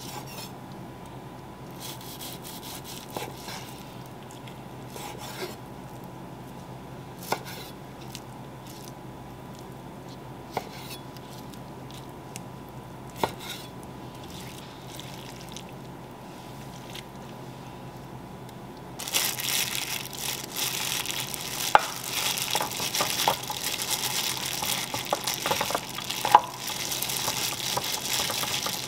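A chef's knife slicing raw flank steak on a wooden cutting board, quiet apart from a few sharp knife taps on the board. About 19 seconds in, a hand in a plastic glove starts mixing the sliced beef with its marinade in a bowl: a louder, continuous wet squishing with glove crinkles and a few sharper clicks.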